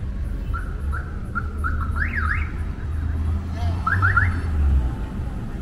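Car traffic rumbling past at close range, with a string of short high chirps and quick rising whistles over it: a few level chirps, then two rising whistles, then three fast rising sweeps near the end.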